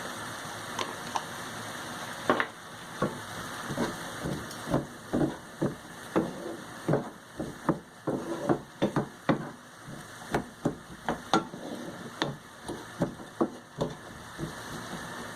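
A utensil knocking and scraping irregularly against a frying pan as onion, peas, grated tomato and spices are stirred, over a steady low sizzle.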